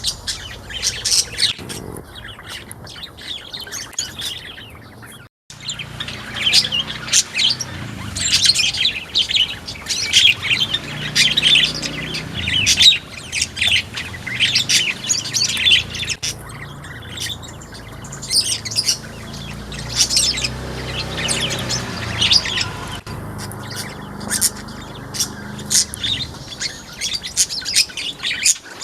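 Pleci (white-eye) birds twittering in quick, high chirping runs, almost without pause, with a momentary break about five seconds in.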